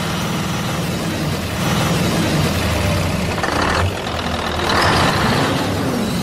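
Heavy truck engine running steadily at low revs, with short louder bursts of hiss about one and a half, three and a half, and five seconds in.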